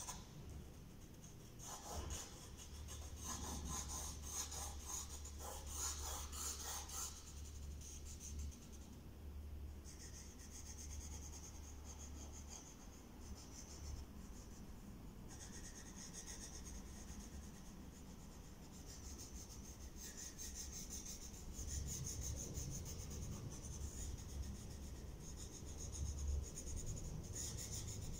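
Pencil drawing on paper: faint, uneven scratching strokes, with a flurry of quick short strokes a few seconds in, over a low steady hum.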